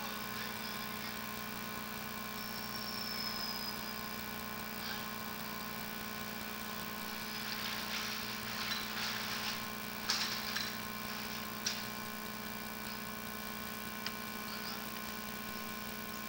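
A steady low mechanical drone, with scattered short scrapes and a couple of sharp clicks around the middle.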